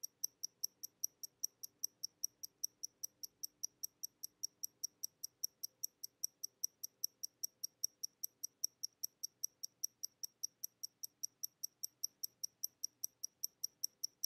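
Mechanical watch ticking: sharp, even, high-pitched ticks about four a second.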